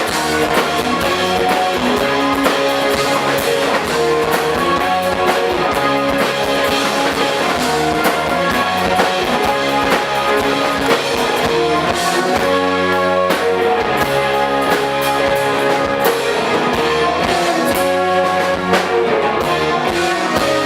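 Live rock band playing at a steady, loud level, with guitar over a drum kit beat.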